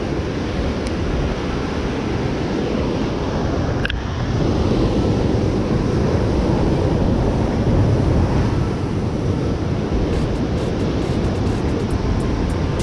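Ocean surf crashing and rushing over a lava-rock shoreline in a steady roar, with wind buffeting the microphone. A single brief click sounds about four seconds in.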